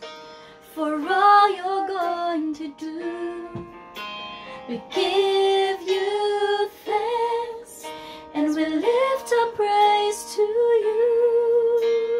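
A woman singing a slow worship song solo over instrumental accompaniment, with a long held note near the end.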